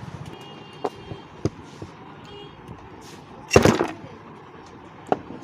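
Metal knocks and clunks as a ceiling fan's armature is worked out of the fan body. A few short knocks, with one louder clattering bang about three and a half seconds in.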